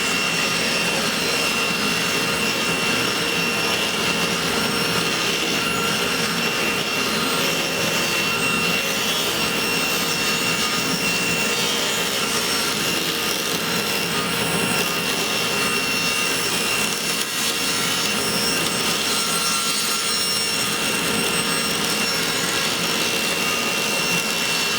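A power tool running steadily on wood, an even hiss with a thin high whine that does not change.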